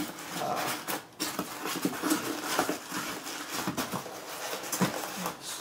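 Packaging being handled in a cardboard carton: plastic wrap crinkling and polystyrene foam inserts rustling and scraping against each other as they are moved, in an irregular run of small noises.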